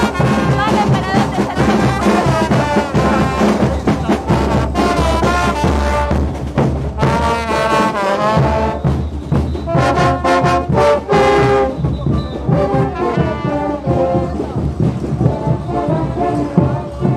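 Marching brass band playing lively parade dance music, with saxophones and euphoniums carrying the tune over a steadily beating bass drum.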